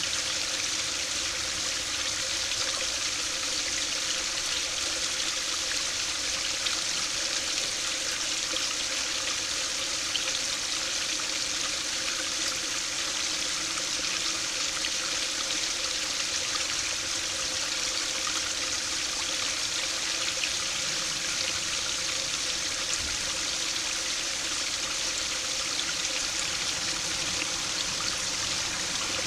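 A small stream spilling over a low concrete step into a pool: a steady splashing of falling water.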